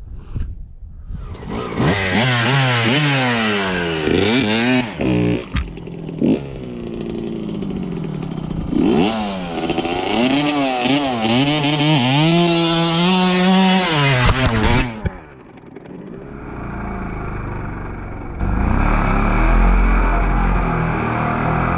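Green Kawasaki dirt bike's engine starting up about two seconds in and being revved up and down over and over. About fifteen seconds in the sound turns duller and deeper as the bike spins a doughnut in loose dirt.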